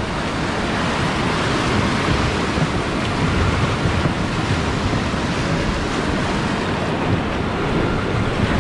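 Whitewater rapids rushing and churning around an inflatable raft, a steady loud roar of water with rough low rumbling from wind on the microphone.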